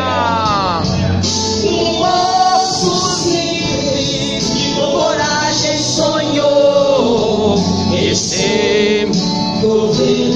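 A woman sings a gospel song into a microphone through a PA system, over instrumental backing. A long note slides down in pitch near the start, and about eight seconds in she holds a note with vibrato.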